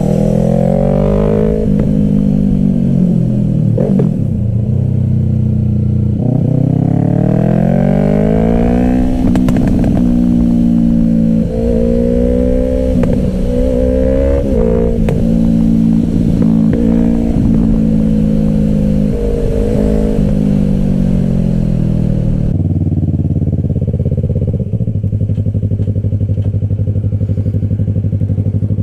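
Yamaha R3's 321 cc parallel-twin engine through an M4 Street Slayer exhaust with the baffle removed, revs rising and falling as the bike rides through bends. About three quarters of the way in the note drops to a steady idle.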